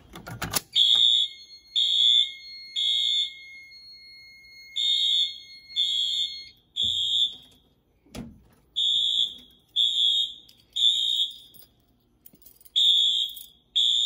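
Wheelock MT multi-tone horn/strobes sounding in the temporal-3 (code 3) evacuation pattern: three short high-pitched blasts, a pause, four times over. A thin steady high tone sounds along with the first half, and there are a couple of brief knocks.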